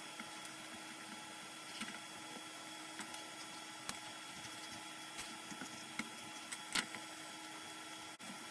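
3D printer printing a flexible TPU part: a steady hum with a few faint steady tones, and scattered light clicks, the loudest a little before the end.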